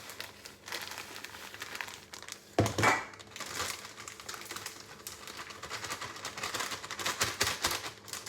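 Plastic cake-mix packaging being crinkled and handled in irregular rustles, with one brief louder knock about two and a half seconds in.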